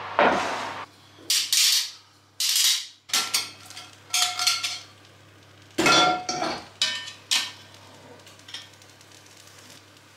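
Cast iron Dutch oven and its heavy lid handled on a wooden board, with metal tongs among them: a run of separate clanks and knocks, several with a short metallic ring, over the first seven or so seconds, then only faint handling noise.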